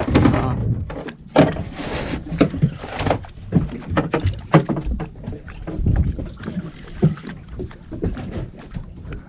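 Water slapping and splashing against a small boat's hull in irregular bursts, with knocks and a low rumble.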